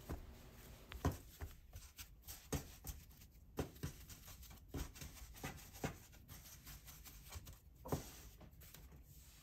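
Hands rolling and pressing a soft, floured dough on a wooden table: faint, irregular soft pats and dull thumps, about a dozen. The clearest come about a second in and near the end.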